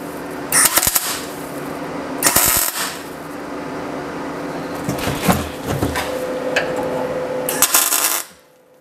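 MIG welder laying short tack welds on mild-steel square tubing: three main bursts of arc crackle, about half a second in, about two seconds in and near the end, over a steady hum. The shielding gas was not turned on, so the arc runs without gas.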